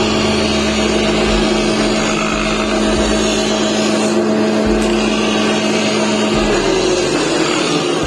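Woodworking planer machine running, with a grinding wheel on its spindle grinding steel as a planer blade is sharpened: a steady motor hum under a grinding hiss. One steady hum tone stops about six and a half seconds in.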